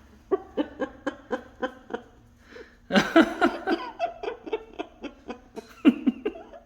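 Parrot imitating laughter in a run of short 'ha-ha' pulses, about four a second. It breaks into a louder burst of laughing about three seconds in and again near the end.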